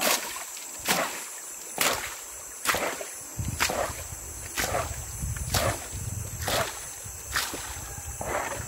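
Water being bailed out of a river longboat with a hand scoop: a splash about once a second as each scoopful is thrown over the side. A low rumble joins after about three seconds.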